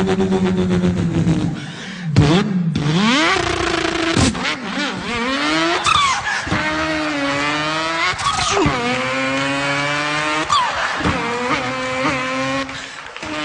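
A man's voice imitating a racing car engine: a held engine note, then revs that climb and drop sharply again and again, like a car accelerating up through the gears.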